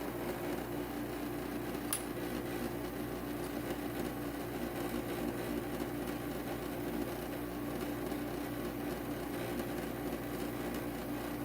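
Inland stained glass grinder running with a steady motor hum, grinding glass pieces to fit. A single sharp click about two seconds in.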